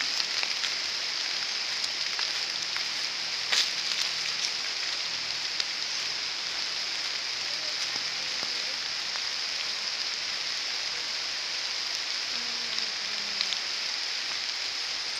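Steady high-pitched hiss of tropical forest ambience, with one sharp click a few seconds in.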